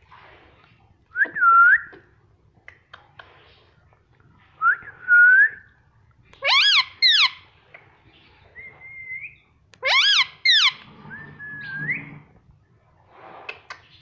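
Ring-necked parakeet whistling in short separate calls: single curved, gliding notes and quick doubled calls that rise and fall sharply, with pauses between them.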